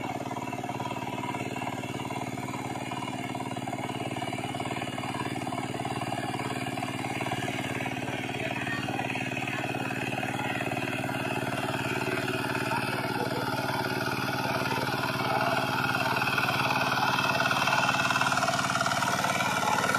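DF 20 hp two-wheel walking tractor's single-cylinder diesel engine running steadily under load while it works a flooded paddy, growing louder as it comes closer.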